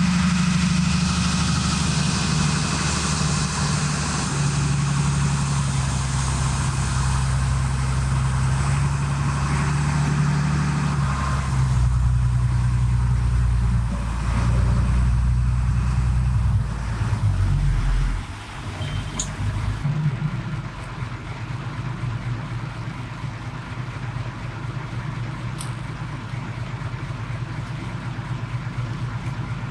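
A small fishing boat's engine running, with wind and water hiss over it. The engine note shifts in pitch several times, then drops to a quieter, steadier level about 18 seconds in.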